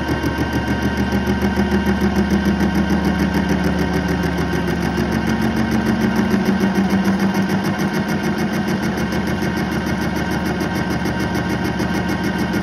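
Metal lathe running while its cutting tool faces a spinning rectangular workpiece: a steady machine hum with a fast, regular pulsing.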